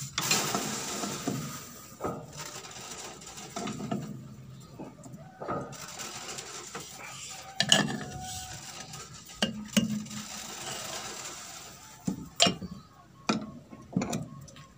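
Metal clinks, scraping and several sharp knocks from hand tools worked against the roll housing of a stopped Yanmar rice husker, as the worn husking roll is loosened for replacement.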